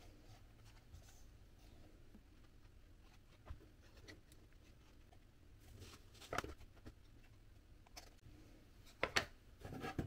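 Faint handling of folded cardboard pieces: a few light knocks and rustles of cardboard in the hands, the loudest two near the end as the pieces are set down on a table.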